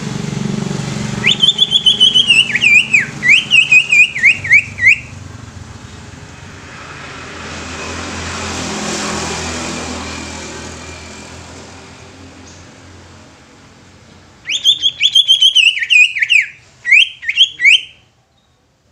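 Cucak ijo (green leafbird) singing two loud runs of rapid, falling whistled notes, the first about a second in and lasting some four seconds, the second near the end. In between, the noise of a passing vehicle swells and fades.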